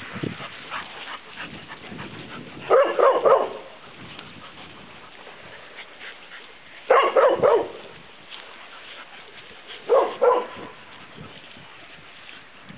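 Dogs playing, with a dog barking in three short bouts of quick play barks, about three, seven and ten seconds in.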